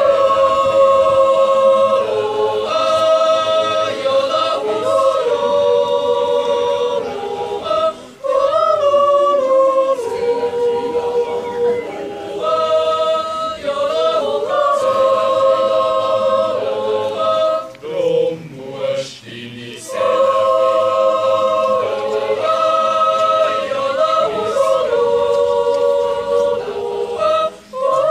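Youth choir of mixed boys' and girls' voices singing a Swiss-German yodel song a cappella in several-part harmony. The chords are held and sung in phrases, with short breaths between them.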